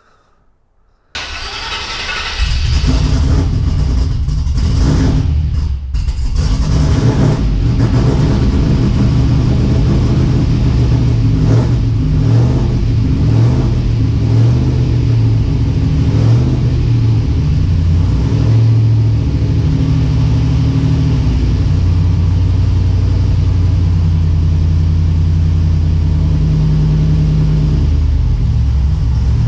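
Cammed 4.8-litre LS V8 of a Chevrolet Silverado cranking about a second in, catching, and settling into a choppy, low-pitched idle through a new exhaust with an X-pipe, a Y-pipe and a Flowmaster Hushpower Pro Series 4-inch muffler.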